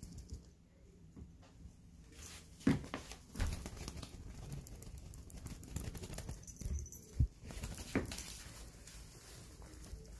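Cat batting at and wrestling an orange feather wand toy on a mat: irregular rustling and scuffing of paws, body and feathers, with a few sharper thumps scattered through.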